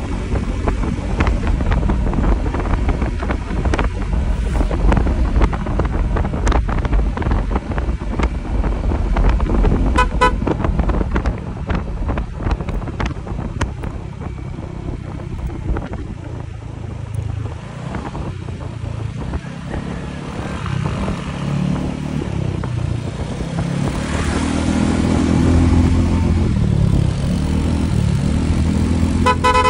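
Motorcycle running at road speed with engine and wind noise as it slows down. A horn gives a few short toots about ten seconds in and again at the very end, and another motorcycle's engine runs close by in the last several seconds.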